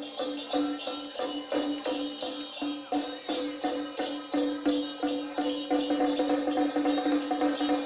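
Traditional Taiwanese gong-and-drum percussion accompanying a Song Jiang array: a steady beat of struck strokes over a ringing gong tone. The strokes come thicker and louder about halfway through.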